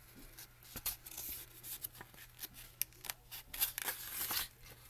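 Paper rustling as a book's pages are handled and turned: soft, scattered scrapes and crinkles, with a longer rustle of a page being flipped near the end.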